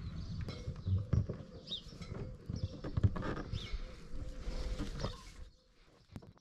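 Close-up handling noise of nitrile-gloved fingers rubbing and wiping along a fresh sealant bead around a boat window frame: scuffing, small knocks and brief squeaks over a low rumble, which drops away about five seconds in, leaving a few sharp clicks.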